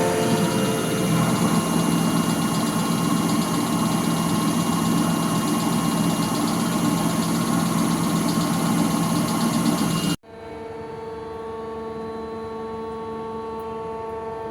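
CNC machine running steadily, a mechanical noise with steady tones through it. About ten seconds in it cuts off suddenly, leaving a quieter steady electrical hum.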